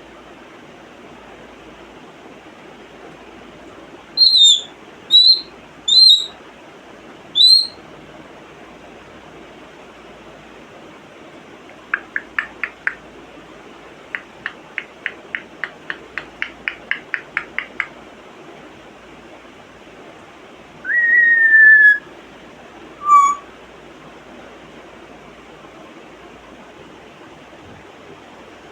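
African grey parrot making a string of different sounds: four short, sharp high whistles, then a fast series of clicks at about three to four a second, then one longer falling whistle and a short lower note.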